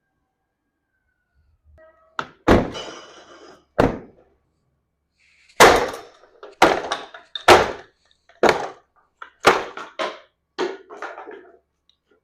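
A series of heavy knocks with a rattle after each, in a garage: a few spaced irregularly about two seconds in, one of them ringing briefly like struck metal, then a steady run of about one knock a second.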